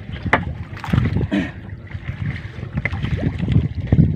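A wet fishing net being hauled by hand over the side of a small outrigger boat: water splashing and dripping off the net, with a few sharp knocks against the hull over a low, uneven rumble.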